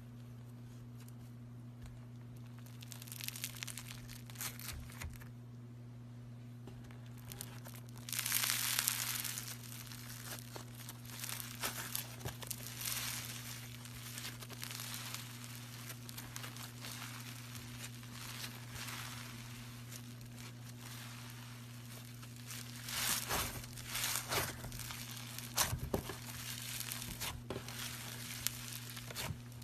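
Slime being worked by hand, giving crackling, crinkling bursts every few seconds over a steady low hum.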